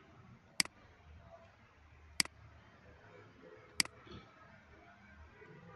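Three sharp computer mouse clicks, evenly spaced about a second and a half apart, as anchor points are picked and dragged.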